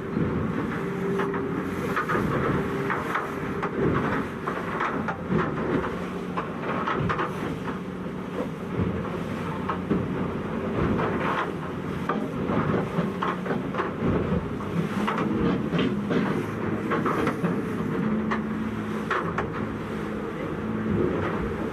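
Motorboat engine running steadily at speed while the hull knocks and slaps repeatedly against waves, with wind buffeting the microphone.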